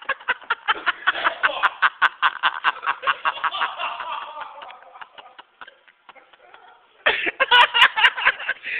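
Laughter in quick repeated bursts, tapering off about halfway through and then breaking out again, louder, about seven seconds in.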